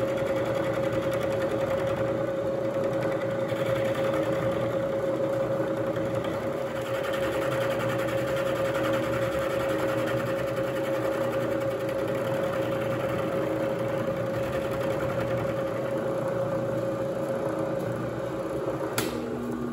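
Bridgeport vertical milling machine running, its end mill cutting a flat on a metal workpiece: a steady motor whine over the hiss of the cut. Near the end a click, and the whine falls in pitch as the spindle winds down.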